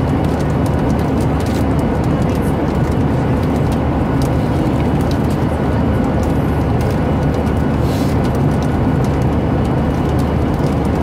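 Passenger airliner cabin noise: the steady, low-pitched drone of engines and airflow, with a few faint clicks.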